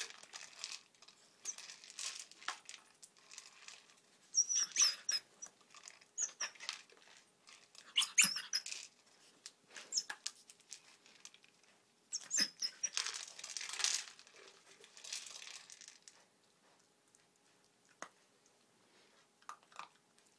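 Puppy nosing and pawing a hard plastic treat-dispensing wobble toy on carpet: irregular bursts of rattling and knocking. The bursts are loudest about four, eight and thirteen seconds in, and thin to a few soft clicks in the last few seconds.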